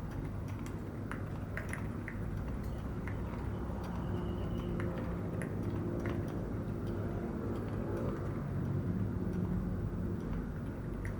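Typing on an Epomaker RT100 keyboard fitted with Epomaker Sea Salt Silent linear switches: soft, muted keystrokes at an uneven pace, the silent switches giving a thumpy sound rather than a clack.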